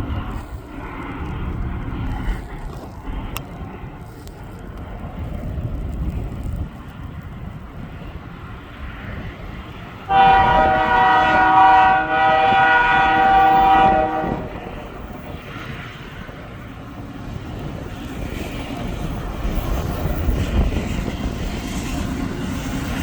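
Diesel locomotives of an intermodal freight train (GE AC4400CW and EMD SD70ACe) sounding a multi-chime air horn in two long blasts about ten seconds in, over the low rumble of the approaching train.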